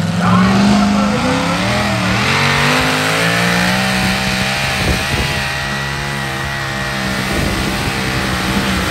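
Supercharged pulling truck's engine running at high revs under load as it drags the weight sled. The pitch climbs over the first couple of seconds, then holds steady.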